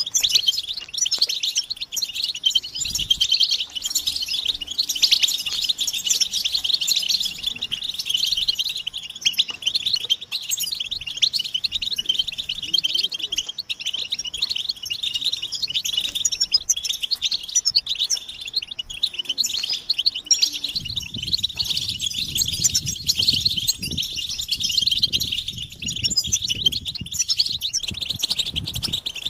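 A group of European goldfinches twittering and chirping without pause, a dense chorus of rapid high calls. About two-thirds of the way in, a low rumbling noise joins underneath.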